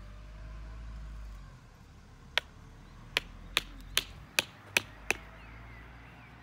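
Small hammer striking the top of a pointed wooden stake, driving it into garden soil: seven sharp knocks, one on its own and then six evenly spaced at about two and a half a second.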